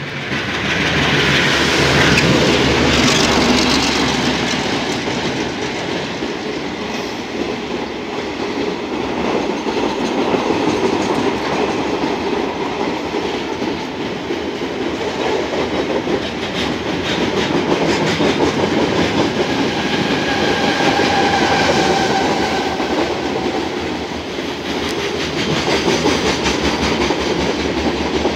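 Diesel-hauled freight train passing close beneath. The locomotive's engine rumble is loudest in the first few seconds, then a long rake of wagons rolls by with steady clickety-clack of wheels over the rails. A brief high squeal comes about two-thirds of the way through.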